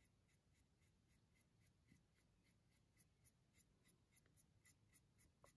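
Faint scratchy swishing of a paintbrush's bristles on canvas, brushed side to side at about three or four strokes a second.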